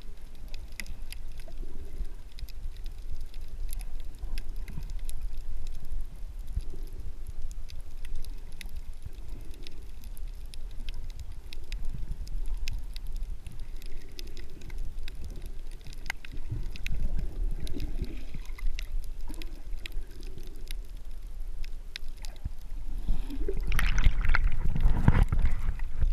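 Underwater water noise: a low rumble of moving water with scattered faint clicks. From about 23 seconds in it turns to louder splashing and bubbling as the camera breaks the surface.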